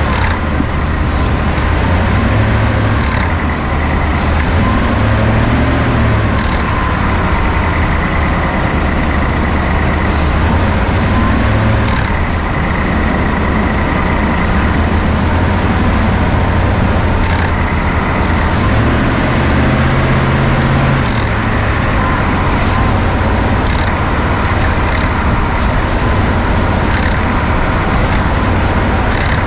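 2018 Ford F-150's 5.0-litre V8 running as the truck is driven, heard from under the hood, its pitch rising and falling, with sharp clicks scattered through every second or few. This is the clicking on letting off the throttle that the owner says a TSB 18-2354 update has not cured.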